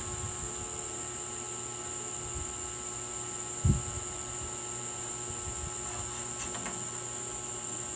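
Steady electrical hum with a thin high whine over it, and a single dull thump about three and a half seconds in.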